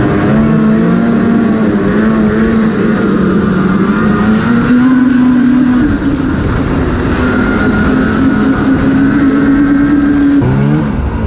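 Arctic Cat Riot X snowmobile's 800 two-stroke engine running at steady trail speed. Its pitch steps up about four and a half seconds in, then it eases off briefly near the end and revs back up.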